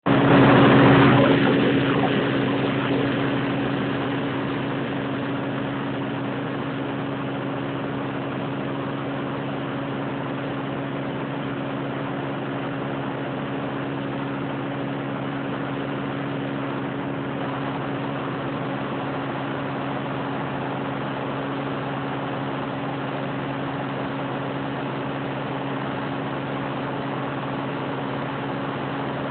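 Engine of a rice-harvesting machine running steadily with an even hum, louder for the first couple of seconds and then settling to a constant level.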